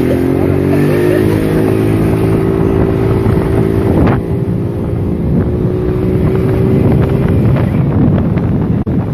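A vehicle engine running steadily, with heavy wind buffeting the microphone and a few faint clicks.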